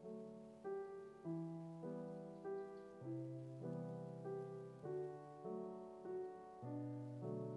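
Soft background piano music: notes and chords struck about every half-second, each fading away.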